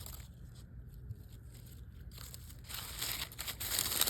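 Crisp crunching and rustling that starts about two and a half seconds in and grows louder, over a faint low rumble.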